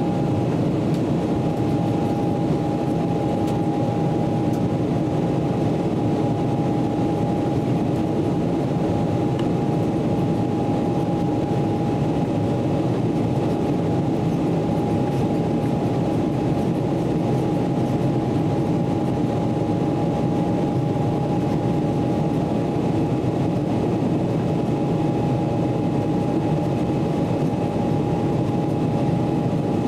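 Cabin noise inside a Boeing 777-300ER in the climb after takeoff: the steady roar of its GE90 engines and the airflow, with one steady high engine tone over it.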